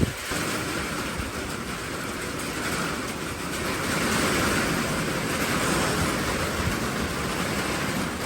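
Severe thunderstorm wind gusting with heavy rain, the wind buffeting the microphone. It grows stronger about three to four seconds in and stays there.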